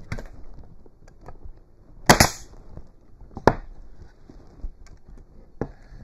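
Pneumatic stapler firing staples into cypress boards: about three sharp shots, the loudest about two seconds in, with a short hiss of air after it.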